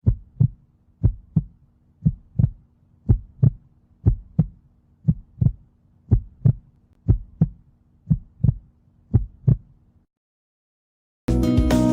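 Recorded heartbeat heard through a stethoscope: about ten lub-dub pairs of short thumps, roughly one pair a second. The beats stop about ten seconds in, and music starts near the end.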